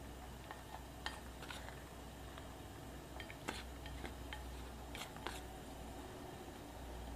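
A handful of faint, sharp kitchen clicks and taps around a metal saucepan, over a steady low hum.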